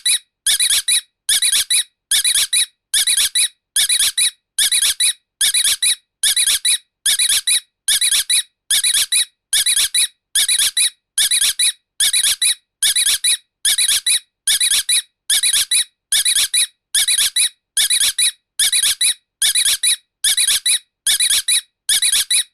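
A shrill, high-pitched squeak repeated in a steady loop, about every two-thirds of a second, played as a sound effect meant to frighten dogs.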